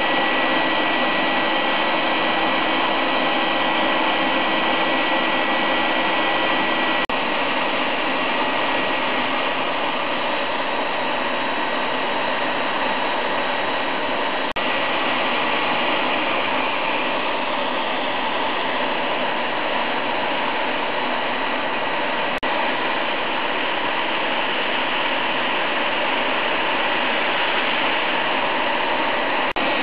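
Spindle motor of a small benchtop CNC mill running steadily with a high whine as the end mill cuts a pocket into a small block.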